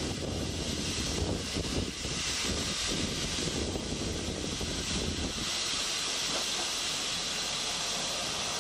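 Diesel train noise at a station as a KiHa 40 diesel railcar comes in past a standing train of oil tank wagons: a steady roar with a deep rumble that drops away about five seconds in, leaving a steady hiss.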